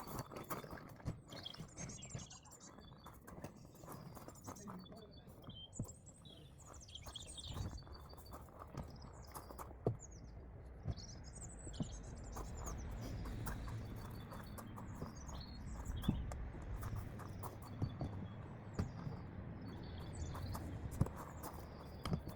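Small birds chirping repeatedly, over scattered clicks, knocks and a low rumble.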